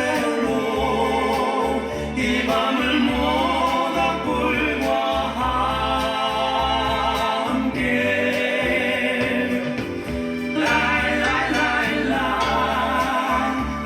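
Folk song: voices singing in harmony with vibrato over steady instrumental accompaniment, in phrases that start afresh about 2, 8 and 11 seconds in.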